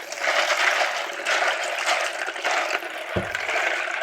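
Warm water running from a tap into a jug of plastic keycaps, with a knock about three seconds in.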